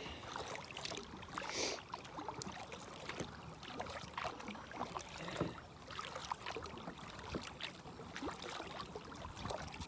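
Kayak paddling on calm water: paddle blades dipping, water dripping and small splashes against the hull, irregular, with a louder splash about one and a half seconds in.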